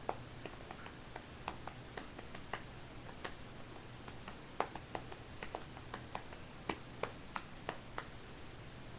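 Scattered faint clicks and ticks at an irregular pace over a low steady hum of room noise.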